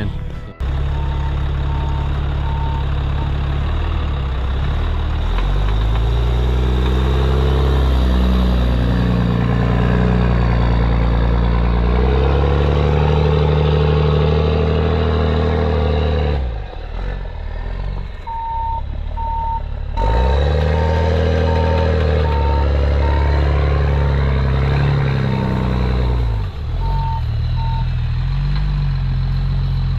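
Ram 5500 wrecker's engine running and revving up and down as the truck turns around in snow. Its reversing alarm beeps steadily while it backs up, briefly near the start and again for about ten seconds in the second half.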